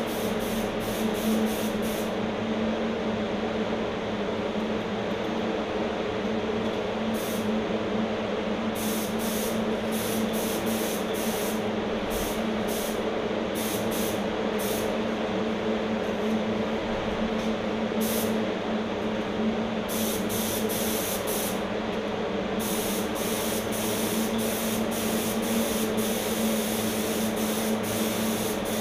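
HVLP paint spray gun in use: a steady motor hum from its air supply, with many short hisses of spray as the trigger is pulled on and off.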